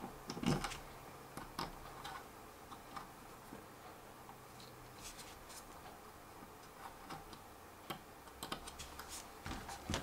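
Faint, scattered clicks and taps of small screws, a screwdriver and plastic prop-guard mounts being handled as screws are started into a DJI Phantom 3's motor arm. A few clicks come about half a second in, and there is a quicker run of them near the end.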